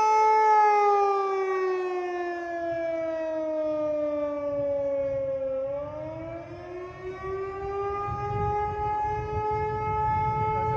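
Outdoor tornado warning siren sounding during a test: its tone holds, falls steadily for about five seconds, then climbs back up within a couple of seconds and holds again, in a wail cycle.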